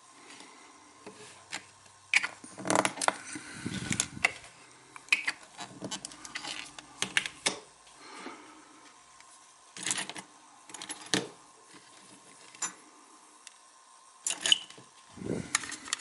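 Small metal tools and tiny butane-lighter parts clicking and tapping against each other and the bench, in scattered light taps with a few short clusters, as a small O-ring is worked onto the lighter's valve part.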